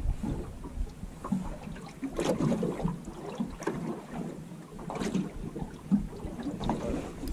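Small waves slapping irregularly against the aluminium hull of a drifting boat, with wind buffeting the microphone at the start and the end.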